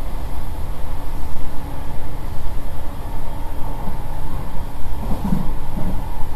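Cabin running noise of a JR East E231-800 series commuter train cruising at about 93 km/h: a steady rumble of wheels on rail, with a faint steady tone above it.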